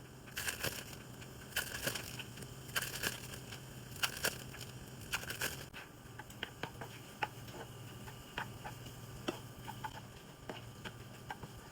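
Plastic wrappers on slices of American cheese crinkling and crackling as they are peeled open, in irregular bursts that are busiest in the first half.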